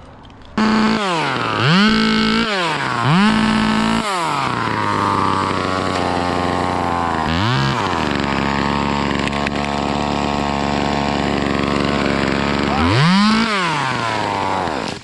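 A small two-stroke chainsaw starts up and is blipped several times in quick rising-and-falling revs. It is then held at high revs for several seconds, with another sharp rev about halfway and again near the end.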